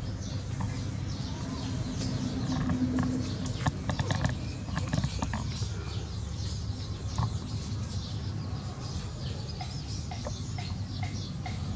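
A puppy chewing and tugging at a cloth rag, with a cluster of clicks and rustles about four seconds in, over a low rumble. Small birds chirp in the background.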